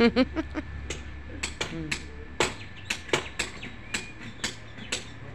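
Sharp knocks, about a dozen at uneven intervals, some with a short ring.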